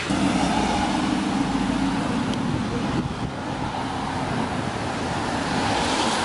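Steady traffic noise from cars on a rain-wet city street, with a constant hiss of tyres on wet road.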